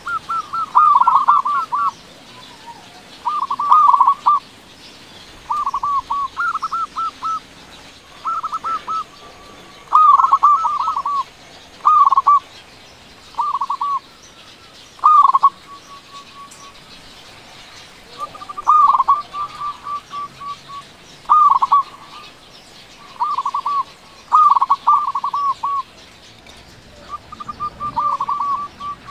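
Zebra dove (perkutut) singing loudly: about a dozen phrases of rapid, stuttering coo notes, each about a second long and repeated every couple of seconds, with a longer pause about halfway through.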